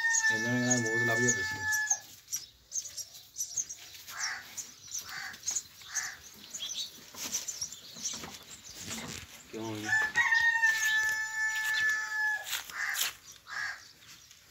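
A rooster crowing twice, each crow a long held note of about two seconds, the second about ten seconds after the first. A lower wavering call sounds under the first crow.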